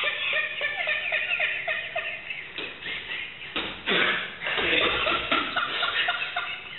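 A few people snickering and laughing, with a thud midway as a body hits the training mat.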